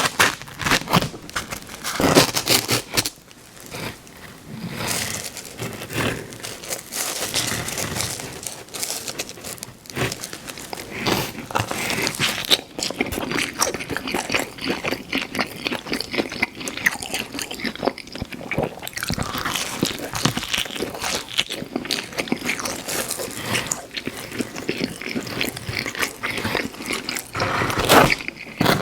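Close-miked mouth sounds of someone eating pizza: crust crunching, biting and wet chewing, with the clicks and crackles of chewing coming thick and uneven. A few louder bites stand out in the first couple of seconds and again near the end.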